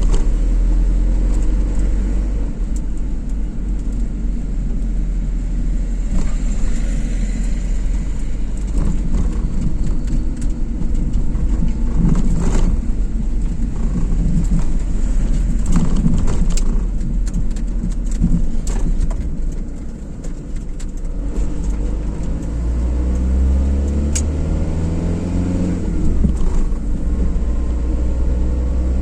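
Car driving: steady engine and road rumble, with the engine note rising as the car accelerates in the last few seconds.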